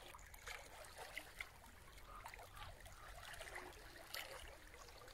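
Faint water lapping and trickling, with small irregular splashy ticks over a steady low rumble.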